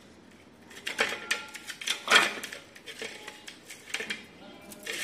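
Small plastic rolling pin rolling modelling clay flat on a stainless steel plate, clicking, knocking and scraping against the metal. It starts about a second in, with the loudest knock around two seconds in.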